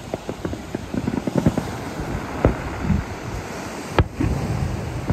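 Distant aerial fireworks bursting: a rapid run of pops and crackles over a low rumble, with louder booms about two and a half and four seconds in, and another right at the end.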